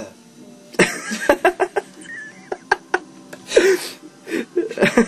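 People laughing in short, breathy bursts and snickers.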